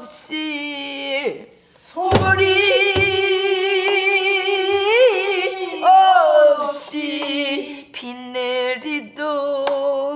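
A woman singing solo in Korean Namdo folk style, holding long notes with wide, wavering vibrato and sliding bends between them. There is a short break after a falling glide, and about two seconds in a single low thump, a stroke on a buk barrel drum.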